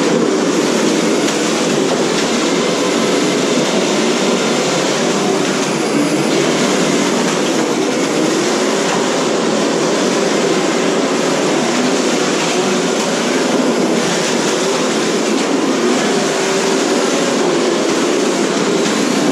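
Several 1/10-scale radio-controlled cars running at once in a demolition derby, their motors whining and wavering up and down in pitch amid a steady clatter.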